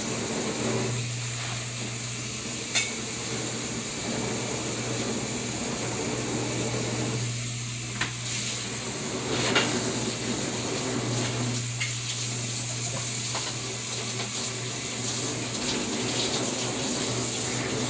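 Kitchen utensils clinking a few times against a bowl while batter is worked, over a steady low hum.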